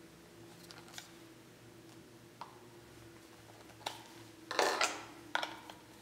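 Light plastic clicks and a brief scraping rustle about four and a half seconds in, as a crevice tool is pulled off a handheld vacuum's nozzle and a brush attachment is fitted.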